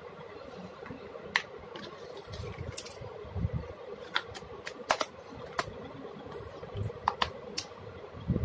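Light clicks and taps of a small clear plastic cup being handled and set down on a tabletop, scattered irregularly, over a steady background hum.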